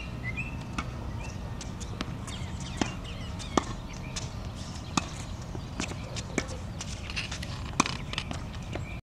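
Tennis balls struck by rackets and bouncing on a hard court: about six sharp pops a second or so apart, the loudest near the end, over a steady low background rumble.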